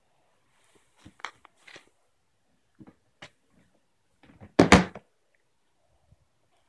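Handling noise from toys being moved about: a few light knocks and clicks, then a louder thunk with a short clatter about four and a half seconds in.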